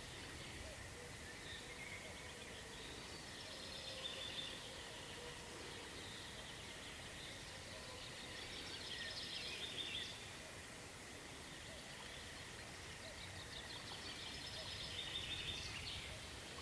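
A bird singing faintly over steady outdoor background noise. It gives a short rapid phrase of about two seconds roughly every five seconds, three times.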